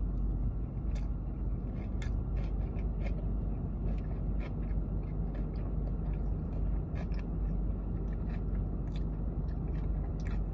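Close-up eating sounds: a person chewing and biting food, with irregular soft crunches and mouth clicks over a steady low hum.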